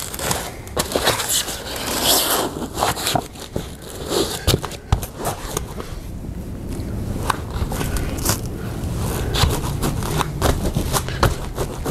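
Scraping, rubbing and crackling of an OSB board with foam pool-noodle ends being worked down against the inflated vinyl floor and side tubes of an inflatable boat, with many small clicks throughout. It is a tight fit.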